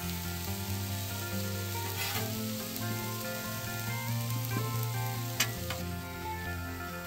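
Meat and peppers sizzling on a Weber Slate propane griddle, with background music over it. A spatula scrapes the plate about two seconds in and clicks sharply on it about five seconds in.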